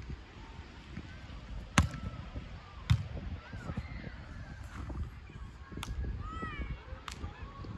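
A ball being hit four times in a doubles rally: sharp, loud hits, the first pair about a second apart, then a gap of nearly three seconds before the last pair. Short squeaky chirps come between the second and third hits.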